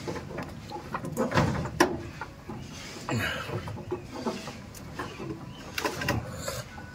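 Chickens clucking now and then, over scattered clicks and rustles of an insulated wire being handled and fed toward the terminal block of a three-phase electricity meter.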